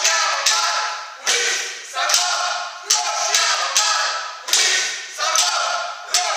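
A group of performers shouting in unison on a steady beat, about one sharp-edged shout every 0.8 seconds, each ringing on in an echoing room.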